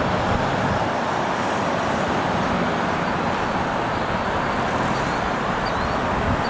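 A line of cars passing one after another on a wet road: continuous tyre noise on wet pavement mixed with engine hum, steady throughout.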